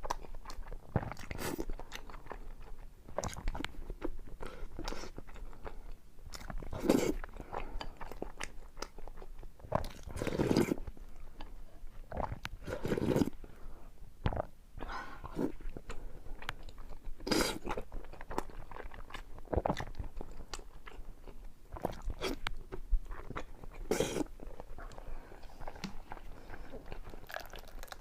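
Close-up eating sounds of a person chewing and sipping hulatang (peppery soup) with soaked egg, in an irregular run of mouthfuls with several louder ones spread through.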